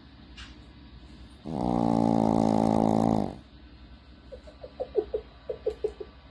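Shih Tzu snoring: one long, loud buzzing snore of about two seconds, then a quick run of short squeaky blips as the breath goes the other way.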